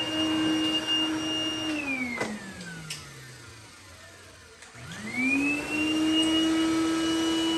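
Dyson DC01 upright vacuum's motor running with a steady whine, switched off about two seconds in and winding down, then switched back on about five seconds in and spinning back up to the same whine. The owner hears it as not sounding normal, with almost no suction, which could be from running the British machine on a converter.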